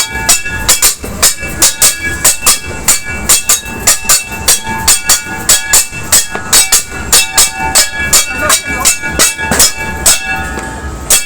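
Metal being beaten rapidly and unevenly, about four clangs a second, each hit leaving a ringing metallic tone, as New Year's noise-making.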